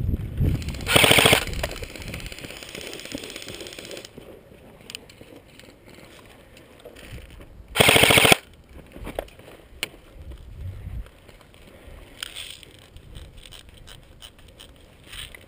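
Two bursts of full-auto airsoft gun fire, each a rapid rattle of shots: a short one about a second in and a longer one, about a second long, near the middle.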